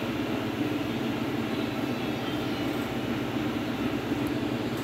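A steady low rumble of background noise that holds even throughout.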